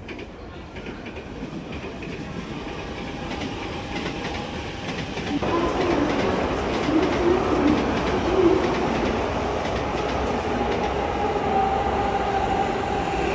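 Train approaching, growing louder over the first several seconds, then running steadily with a wavering motor hum and rail noise.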